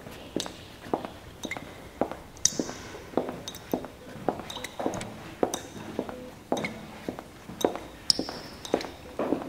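An irregular run of sharp taps and clinks, about two a second, many followed by a brief high ringing ping.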